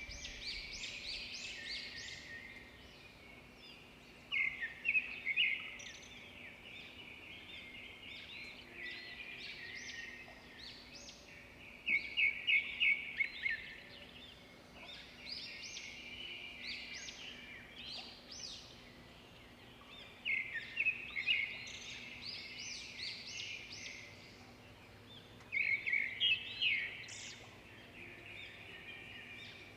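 Small birds chirping and singing throughout, with louder bursts of rapid chirps every several seconds.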